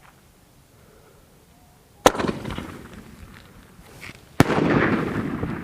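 A sky shot aerial firework going off: two sharp bangs about two seconds apart, each followed by a fading rush of noise.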